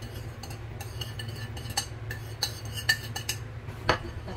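Light clinks and taps of a ceramic plate against a small ceramic bowl and of utensils on the countertop, with a few sharper clinks in the second half. A steady low hum sits underneath.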